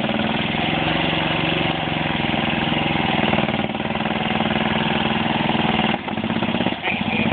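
Lifted golf cart's engine running steadily under throttle as the cart tries to pull itself out of deep mud, with a brief dip about six seconds in.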